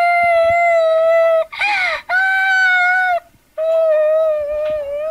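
A woman wailing in long, drawn-out cries: three held notes of over a second each, with a short gliding sob between the first two and a wavering last cry.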